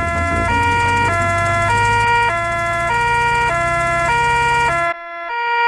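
Cartoon two-tone emergency siren, switching between a high and a low note about every 0.6 s, from Doctor Bear's car on its way to the sick child. Beneath it a low engine hum runs and stops abruptly about five seconds in, while the siren carries on a moment longer.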